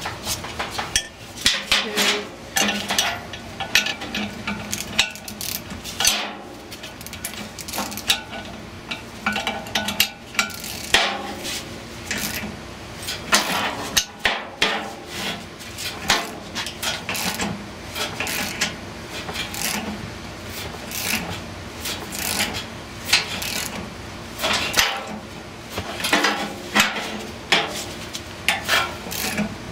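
Ratchet wrench clicking in irregular spurts, with metal tools clanking, as a puller's forcing screw is cranked against a blower motor shaft frozen in the hub of a squirrel-cage wheel.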